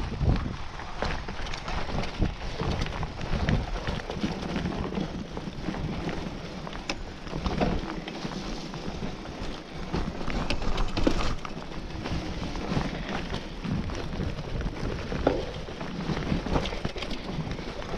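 Mountain bike riding fast down a dirt forest trail: tyres rolling over dirt and roots, with frequent knocks and rattles from the bike over bumps and wind rumbling on the microphone.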